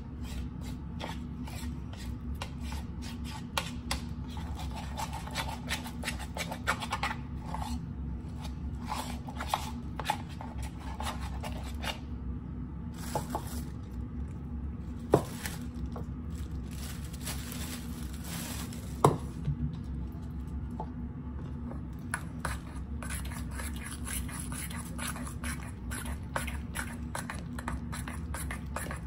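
Flour-and-water sourdough starter being mixed by hand in bowls: repeated scraping, rubbing and soft clicks against the bowls. Two sharp knocks about fifteen and nineteen seconds in are the loudest sounds, all over a steady low hum.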